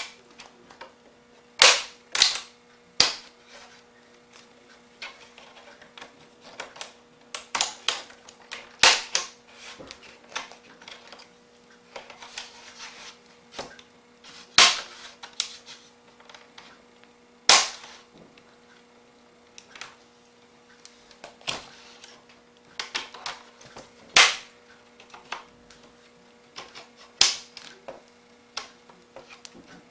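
Plastic screen bezel of a Lenovo G700 laptop being pried off, its retaining clips snapping loose in sharp cracks at irregular intervals, sometimes two or three in quick succession. It's the normal cracking of the clips releasing, not breakage.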